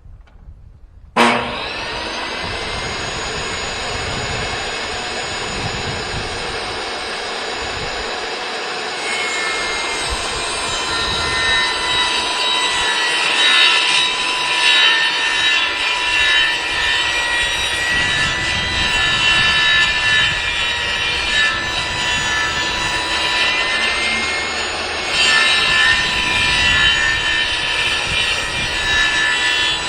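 Kobalt table saw switched on about a second in, its motor and blade spinning up to a steady high whine, then growing louder and rougher from about nine seconds as the blade cuts through 3/4-inch plywood.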